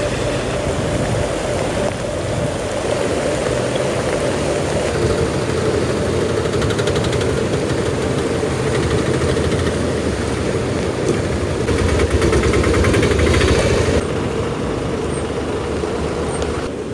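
Heavy monsoon rain and rushing floodwater: a steady, dense wash of noise whose tone changes abruptly twice, late on.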